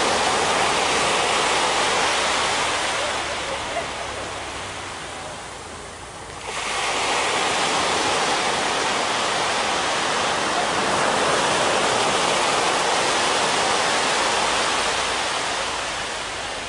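Small waves breaking and washing up a sandy beach, a steady rush of surf that eases off about six seconds in and surges back as the next wave breaks.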